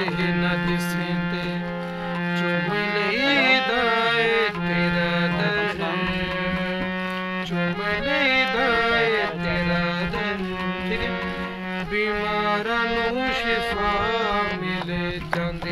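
Harmonium playing a song melody on the keys over a steady low drone note held underneath.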